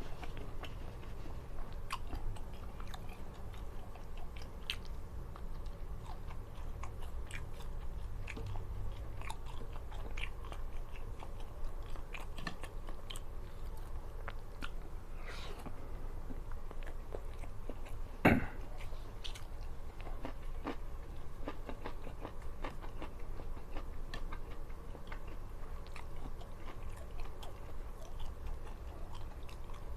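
Close-up eating sounds: a person chewing and biting food, with many small clicks and occasional crunches. One sharper knock comes about 18 seconds in.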